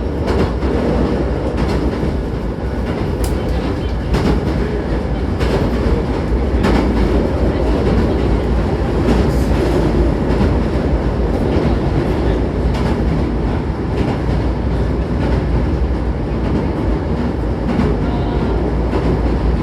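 Hankyu 9000-series electric train running between stations, heard from inside the car: a steady rumble of wheels on rail, with scattered clicks from rail joints.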